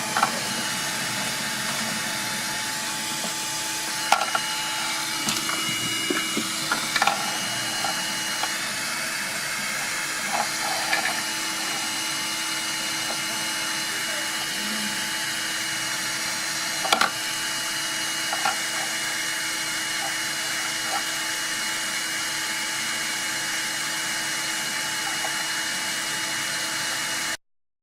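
A steady machine whir with a constant hum, broken by scattered clicks and knocks, cutting off suddenly near the end.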